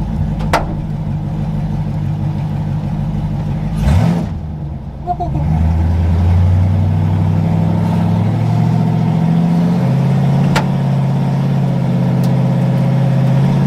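392 (6.4-litre) Hemi V8 idling, heard from inside the truck's cab, then pulling away about five seconds in: the engine note grows louder and climbs slowly, and steps up again near ten seconds.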